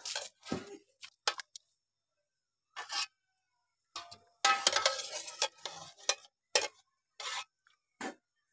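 Metal kitchen utensils scraping and clinking against pots and dishes, in a string of short separate bursts, a few with a brief metallic ring.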